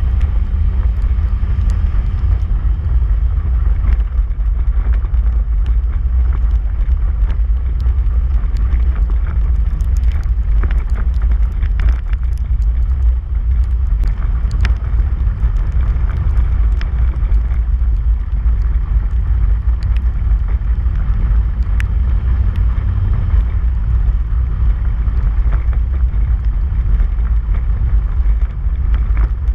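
Polaris RZR side-by-side driving over a dirt trail: a steady low rumble of engine and rough ride, with scattered sharp ticks throughout.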